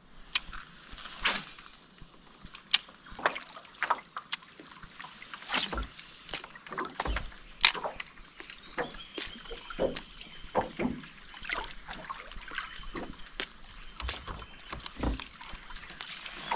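Water lapping and slapping against the hull of a Hobie Lynx pedal kayak under way: irregular small splashes and knocks, several a second.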